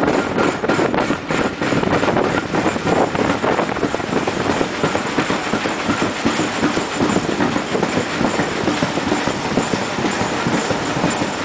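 Train of heritage coaches hauled by a Class 37 diesel locomotive, heard at speed from an open coach window: a loud, dense rush of wheel and wind noise. Rapid clickety-clack of wheels over rail joints is clearest in the first couple of seconds.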